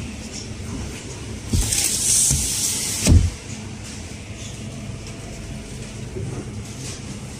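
Steady low hum of supermarket freezer cases. About a second and a half in, a loud hiss rises for a second and a half and ends in a dull thump.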